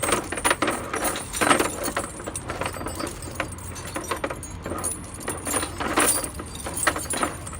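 Steel tire chains clinking and rattling in irregular metallic clanks as a chain is handled and laid out on the ground.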